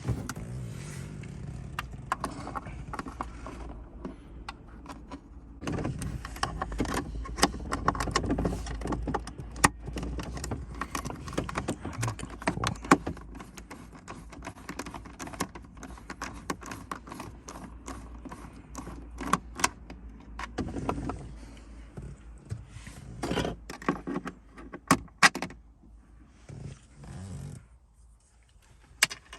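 Screwdriver working screws out of a car's plastic dash trim: irregular metal clicks and rattles, with louder sharp clicks now and then.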